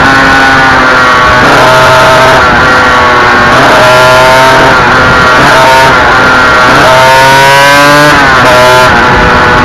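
Yamaha TZR 250 two-stroke twin racing motorcycle engine heard from onboard, loud and at full throttle. Its revs climb and fall back with each gear change, several times, over wind rush.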